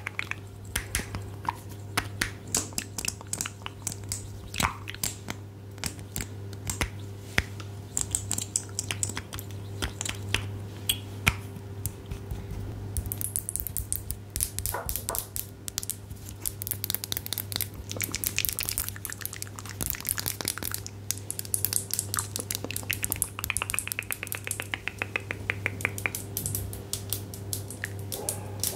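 Close-miked ASMR trigger sounds: a long run of irregular taps, clicks and crackles, thickening into a denser, brighter crackling about halfway through, over a steady low hum.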